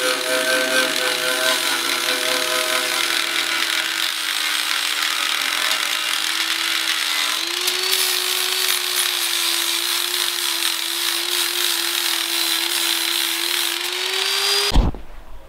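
Handheld angle grinder running and grinding on the sled's steel frame: a steady high motor whine over a harsh grinding hiss, its pitch sagging briefly as it is pressed into the work about halfway through. It cuts off abruptly near the end.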